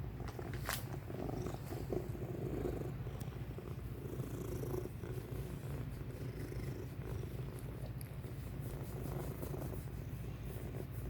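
Domestic cat purring steadily, close up, with a single sharp click a little under a second in.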